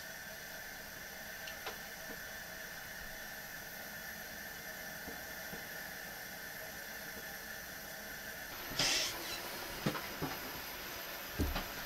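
Steady hiss of a lit camp stove burner under a pot, stopping about eight and a half seconds in. It is followed by a short loud rush of noise and a few knocks and thumps near the end.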